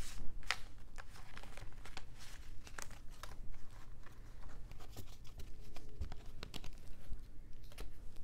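Tarot cards being gathered up and shuffled by hand: irregular papery snaps, slides and rustles, several a second.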